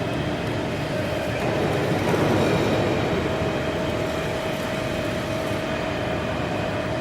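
CNC hydraulic press brake running: a steady hum with one constant tone over a mechanical rumble, swelling slightly about two seconds in.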